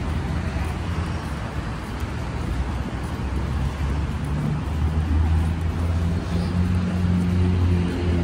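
Street traffic noise: a steady hum of vehicles on the road, with a low engine drone that grows stronger about halfway through.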